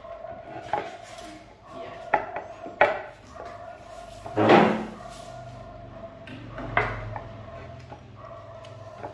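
Wooden chopsticks clicking and knocking against a ceramic rice bowl and a wooden high-chair tray as a toddler eats: a few separate sharp clicks, the loudest a longer clatter about halfway through.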